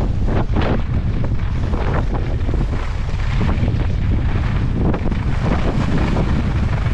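Strong wind blasting across the microphone: loud, steady wind noise with small gusts.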